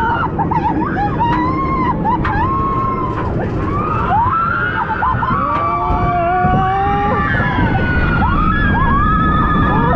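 Several riders screaming on the Flying Dinosaur flying roller coaster, their overlapping cries rising and falling over a steady rumble of the moving ride.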